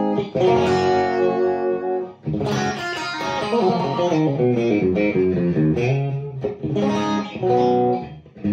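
Electric guitar played through a Wolf Cub volume boost pedal set almost at 3 o'clock into a Marshall tube amp. Ringing chords come first, then a short break about two seconds in, then a run of moving single notes, and chords again near the end.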